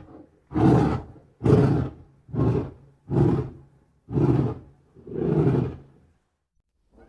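Lion roaring: a run of six short, deep roars about a second apart, the last one longer than the rest.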